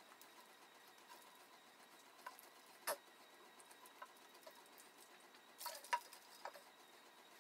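Faint room tone broken by a few scattered small clicks and taps of eating and drinking at a table, with a plastic shaker bottle handled. The sharpest click comes about three seconds in, and a short cluster comes near six seconds.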